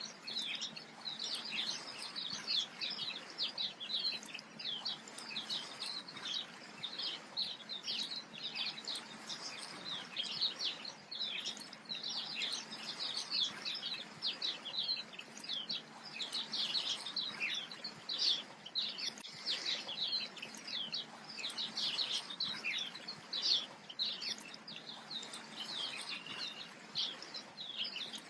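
Many small birds chirping continuously in a dense chorus of short, rapid, high chirps over a soft steady hiss.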